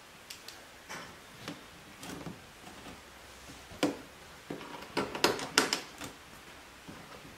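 Scattered small clicks and light knocks of hands handling a composite rock guard and its bottom screw under a car's wheel well, with a cluster of sharper clicks about five to six seconds in.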